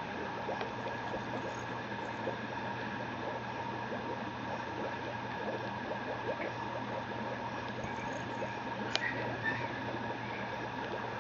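Steady background hum and hiss with faint soft rustling, and a single sharp click about nine seconds in.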